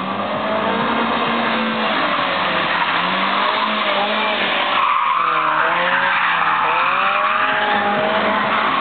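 BMW car's engine revving up and down under hard driving, with tyres squealing, loudest in the second half.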